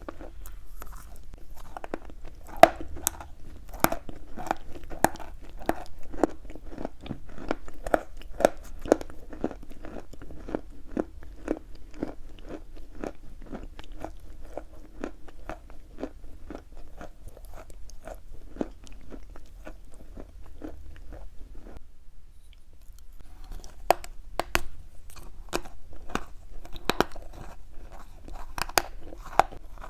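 Chalk being bitten and chewed: a dense run of crisp crunches. They stop for about two seconds after the middle, then resume with a few sharper, louder crunches.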